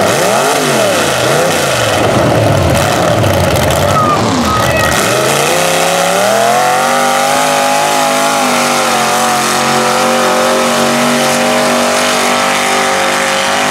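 Mud-racing trail truck's engine revving: quick rev blips up and down in the first couple of seconds, then about five seconds in it climbs to high revs and holds there steadily.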